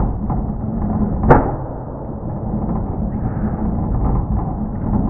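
Classic Mini A-series engine with an Arden 8-port head and Jenvey throttle bodies cranking on the starter without catching, with one sharp bang about a second in as it spits back. It is not starting, which the owner says seems to be timing related.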